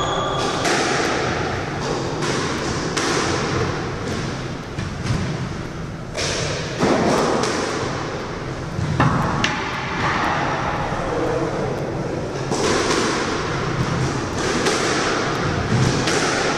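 Squash rally: the ball is struck by the rackets and thuds off the court walls again and again, each hit sharp and echoing, with the loudest strikes about seven and nine seconds in.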